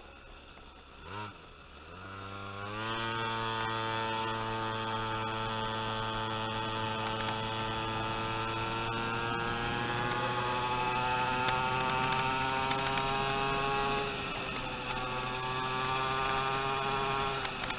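Pocket bike's small motor speeding up about two and a half seconds in, then running at speed in a steady whining hum whose pitch slowly climbs. It eases off about fourteen seconds in and again at the very end.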